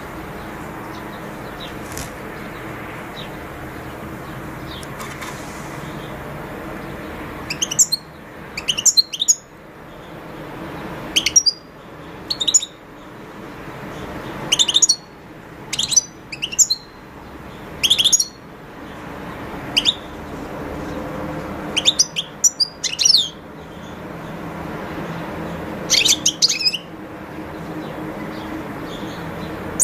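European goldfinch calling in short bursts of high twittering chirps. The chirps start about seven seconds in and come every second or two, over a steady low background hum.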